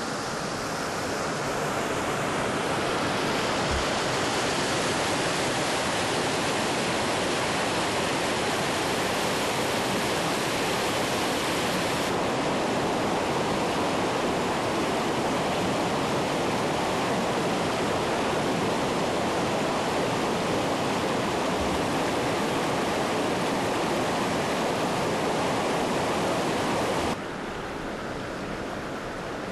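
Floodwater rushing steadily over a flooded road: a continuous, even rush of water. Its character changes abruptly about twelve seconds in, and it becomes quieter near the end.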